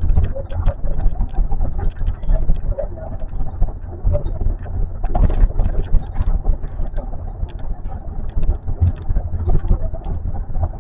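Running noise of an Osaka Metro New Tram driverless rubber-tyred guideway train, heard from inside the car: a steady low rumble with frequent short clicks and rattles.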